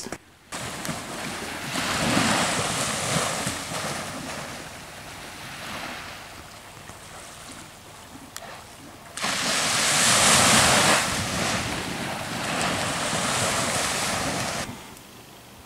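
Surf washing onto a sandy beach, mixed with wind on the microphone. The noise swells and eases; a louder stretch starts suddenly about nine seconds in and drops away about five seconds later.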